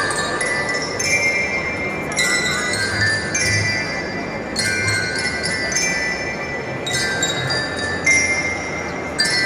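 Metal bells of a glockenspiel-type marching bell lyre struck with mallets, a new ringing note or chord about once a second.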